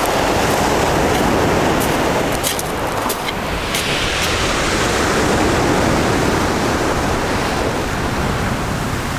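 Steady rushing of sea surf, with a few faint clicks in the first few seconds.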